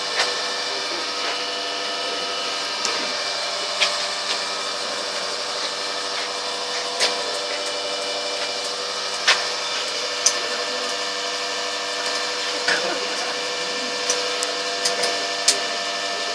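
Old universal testing machine running with a steady hum as it slowly compresses a wooden cylinder. The wood gives a sharp crack every few seconds as it fails under the load.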